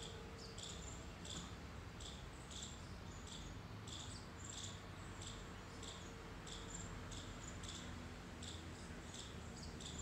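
White-bellied drongo calling: a steady series of short, high notes, about two a second.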